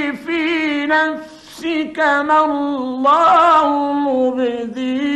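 A man's voice in melodic (mujawwad) Quran recitation on an old 1950s recording. He draws out and ornaments the phrase in long held notes with wavering pitch, and takes a short break a little after a second in.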